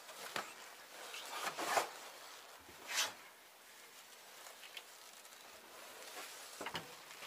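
Cloth cover and insulation being lifted and peeled back off the frames of a wooden beehive: faint rustling and scraping in a few short strokes, the sharpest about three seconds in.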